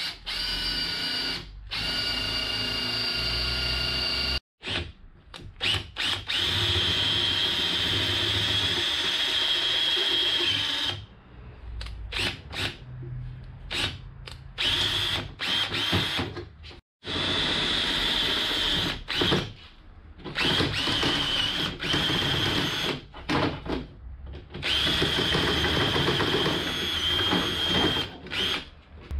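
Makita cordless drill boring holes through aluminium bar. It runs in several long, steady stretches of high whine, with short bursts of the trigger in between.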